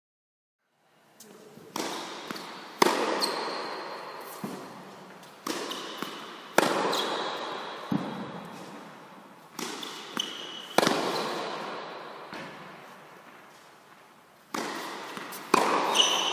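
Tennis balls struck by rackets and bouncing on an indoor court, starting about a second in: sharp pops every second or two, in pairs and threes as serves are hit and returned, each ringing on in the hall's long echo.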